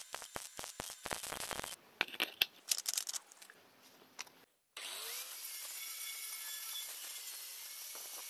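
Stick welding crackling on steel plate for the first second and a half, then a few sharp metallic clicks. After a short break, an angle grinder with a flap disc grinds steadily along the weld seams.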